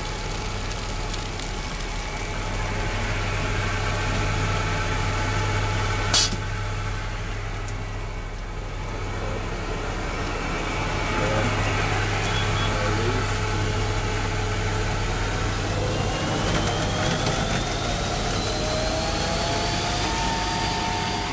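Rosenbauer fire truck's pump and engine running steadily, with water rushing out of a hose and splashing. A single sharp click about six seconds in, and from about sixteen seconds the pitch climbs as the pump speeds up.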